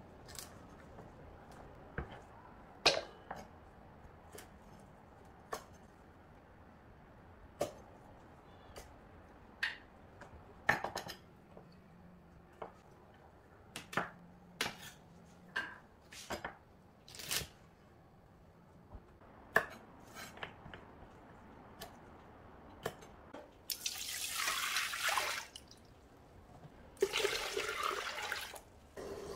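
Knife cutting garlic scapes on a wooden cutting board: scattered, uneven sharp chops. About 24 seconds in and again near the end, liquid pours into a steel pot; the second pour is water from a glass measuring cup.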